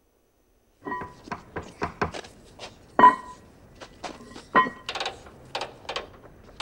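Film-clip soundtrack played over the church's sound system: after about a second of silence, a quick, irregular run of clicks and knocks, several with a short ringing tone, the loudest about three seconds in.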